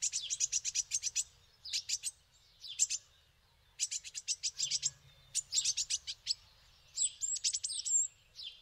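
Small songbirds chirping in about six quick runs of sharp, high notes, roughly eight or nine notes a second, with short pauses between the runs.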